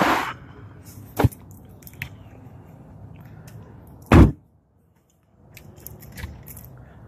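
A car's trunk lid slammed shut about four seconds in, a single heavy thud that is the loudest sound. A sharper knock comes about a second in, over faint handling noise.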